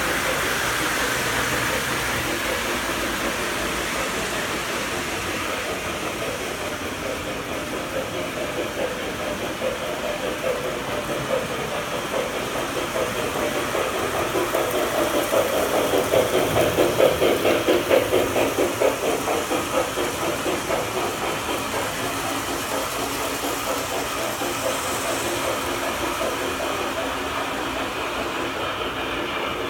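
Three-rail O-gauge model trains running on the layout: a steady mechanical running and rumbling of the model locomotives and cars on the track. A smoking model steam locomotive is among them. The noise swells and pulses rhythmically for a few seconds around the middle.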